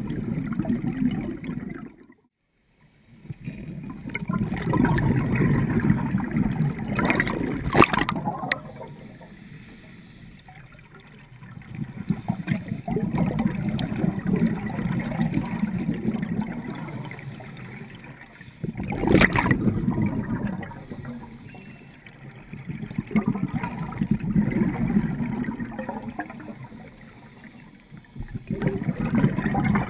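Scuba breathing through a regulator underwater: bubbling exhalations that swell and fade every several seconds, with a couple of sharper hissing bursts. The sound cuts out briefly about two seconds in.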